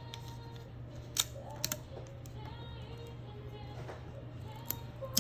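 Soft background music, with a few sharp, light clicks: two about a second in and more near the end. The clicks are small tools and parts being handled on an opened smartphone.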